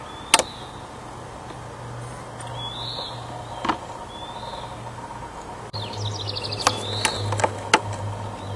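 Bird calls: a short whistled note that rises and falls, repeated about every three seconds, with a quick run of rapid notes about six seconds in. Several sharp clicks, the loudest just after the start, over a steady low hum.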